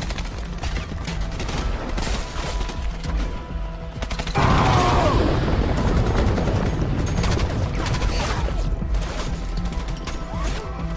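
Rapid gunfire, many shots in close succession, over background music. About four seconds in there is a sudden louder blast that fades away over a second or two.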